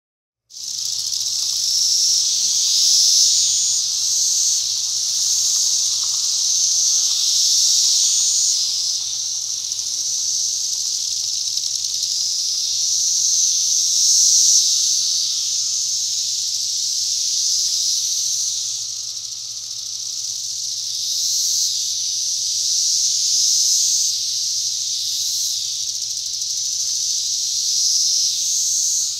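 Dense chorus of periodical cicadas (Magicicada): a continuous, high-pitched buzzing drone that swells and eases in loudness, starting about half a second in.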